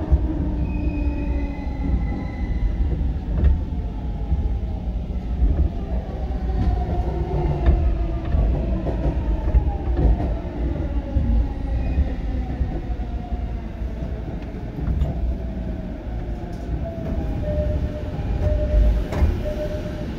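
209-series electric train's GTO-thyristor VVVF inverter whining as the train brakes, several tones falling in pitch as it slows, over the rumble of the wheels on the rails. Near the end one steady tone holds as the train nears a stop.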